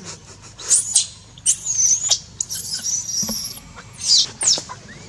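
Baby macaque giving a series of high-pitched distress screams, about four or five in a row with one held for about a second midway, as an adult handles it roughly.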